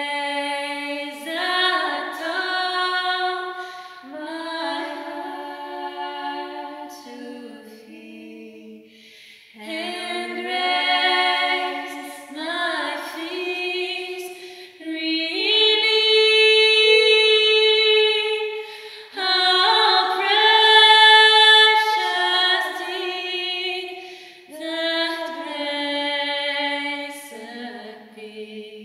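Two women's voices singing a cappella in harmony: slow phrases with long held notes, loudest around the middle, with a short break about eight seconds in.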